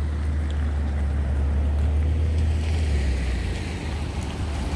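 Wind buffeting the microphone, a heavy low rumble that eases off near the end, over a steady hiss.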